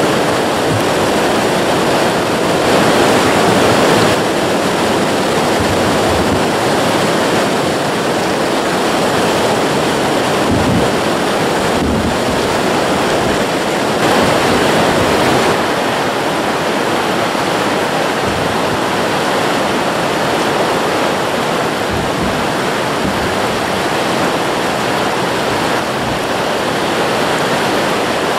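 Wide ledge waterfall on a creek, whitewater rushing steadily over the drop.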